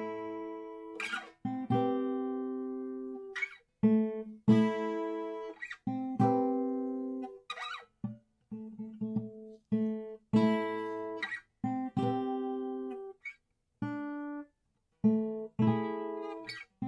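Guitar strummed in separate chords, each struck and left to ring for about a second before it is cut off, with short gaps of silence between them.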